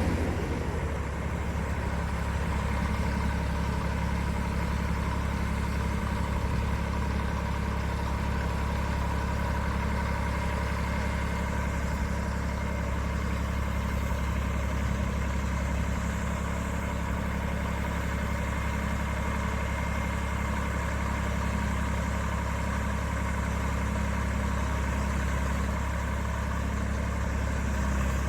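Diesel engine of farm machinery running steadily at an even, low speed, with no revving.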